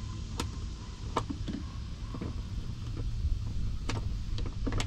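A wrench tightening the bolt of a hardtop latch, heard as about seven sharp, irregularly spaced clicks and taps over a steady low rumble.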